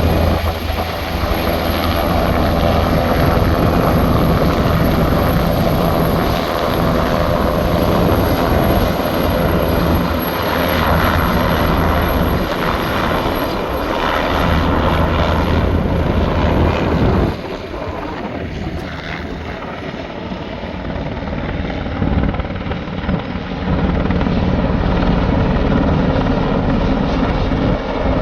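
Wildfire-fighting helicopter's rotor and turbine engine running steadily with a strong low hum. It eases off for a few seconds past the middle, then grows louder again.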